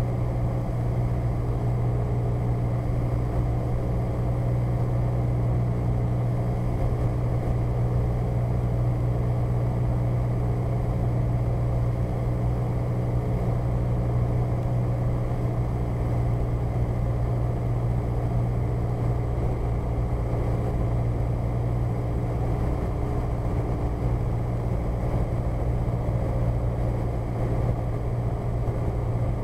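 Cessna 172's piston engine and propeller running steadily in flight on approach, heard from inside the cockpit as an unbroken low drone.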